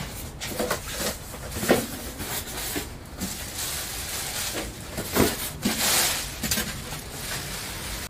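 A cardboard shipping box being opened and its packing handled: rustling and scraping with an uneven run of knocks and clicks.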